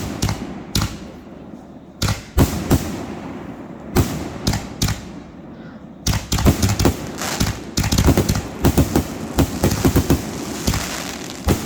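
Fireworks going off outdoors: a few separate bangs spaced a second or so apart, then from about six seconds in a rapid, crackling string of many reports close together.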